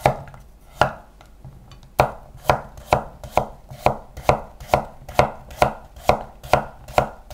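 Kitchen knife slicing Korean radish into thin square slices for soup, each cut ending in a sharp knock on the cutting board. A couple of scattered cuts come first, then about two seconds in a steady rhythm of a little over two cuts a second begins.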